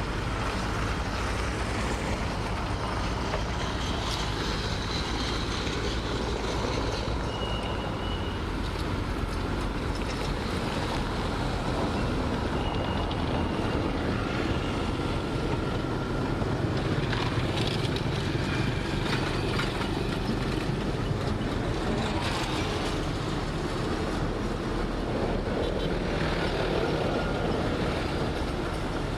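Heavy diesel earthmoving machinery working: a steady engine drone with clatter, holding at an even level, with a few brief faint high squeaks.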